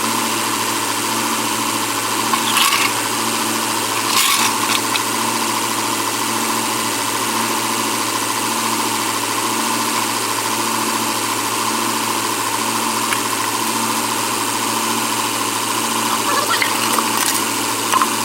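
Ford diesel pickup engine idling steadily, with a few short sharper noises over it.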